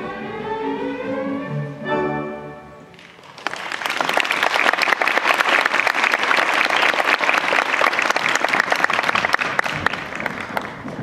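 The last held notes of a live musical piece end about three seconds in. Then an audience applauds steadily, easing off near the end.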